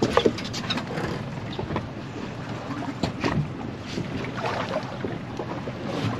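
Wind buffeting the microphone and water moving against a small fishing boat's hull, with a few sharp knocks near the start and again about three seconds in.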